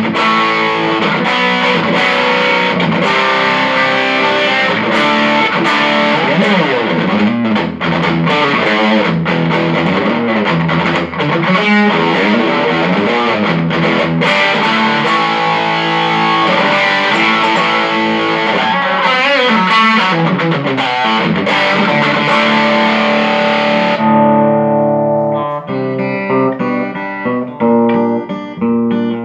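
Electric guitar played through a Mesa Boogie Studio .22+ tube amplifier with a distorted tone, chords and lead lines, sounding continuously without cutting out after a repair for intermittent sound loss. About 24 seconds in the tone turns darker and cleaner, with separate picked notes.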